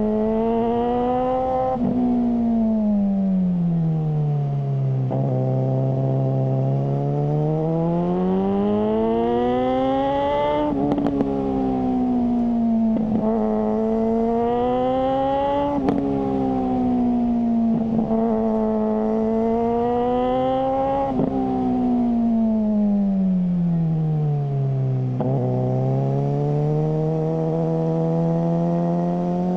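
Suzuki GSR600 inline-four engine through a GPR Ghost aftermarket exhaust, running under way: the pitch climbs as it accelerates and sinks in long falls as it slows, several times over. Several sharp clicks are scattered through, some where the pitch turns over.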